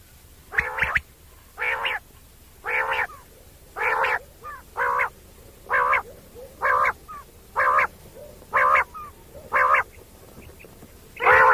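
An animal giving short, pitched calls repeated evenly about once a second, each lasting a fraction of a second.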